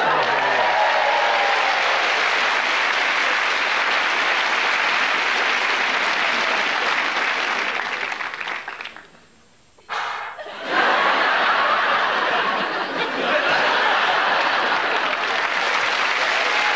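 Studio audience applauding, with some laughter. The applause fades away about eight seconds in, drops out for about a second, then starts up again at full strength and carries on.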